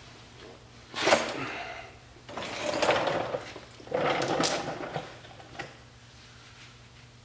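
Three scraping, rattling handling noises, each about a second long, as steel bumper support brackets are picked up and shifted into place.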